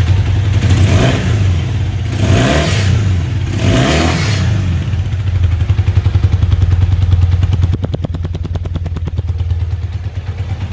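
Motorcycle engine with freshly balanced carburetors blipped three times, about a second apart, each rev rising and falling back. It then settles into a steady, even idle.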